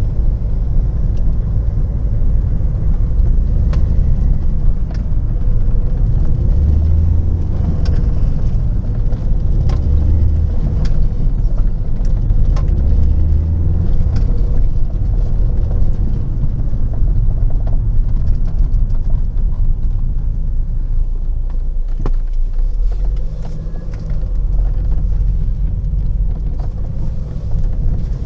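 Renault 1.9 dCi diesel car being driven, a steady engine and road rumble whose low note swells and eases several times. It is running on a newly fitted injection pump that cured its no-start.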